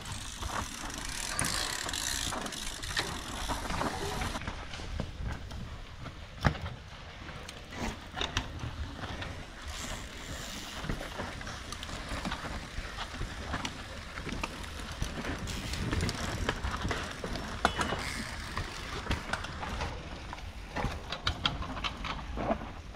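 Mountain bikes passing one after another on a dirt trail: freewheel hubs ticking, chains rattling and tyres running over loose soil. There is a sharp knock about six and a half seconds in.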